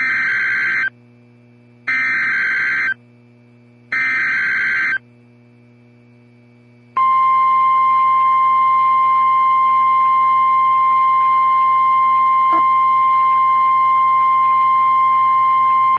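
Emergency Alert System SAME header: three bursts of warbling digital data tones, each about a second long and a second apart. About two seconds later comes the single steady alert tone of a NOAA Weather Radio-style broadcast, held for about nine seconds. Together they signal the start of a new tornado warning broadcast.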